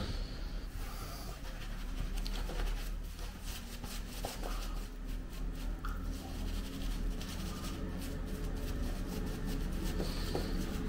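Shaving brush bristles scrubbing lather over stubbled cheeks and chin, a soft repeated scratchy rubbing, after a brief knock at the very start.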